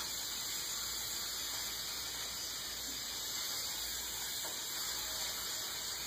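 Aerosol cooking-spray can hissing in one long, unbroken spray as it greases a metal baking pan.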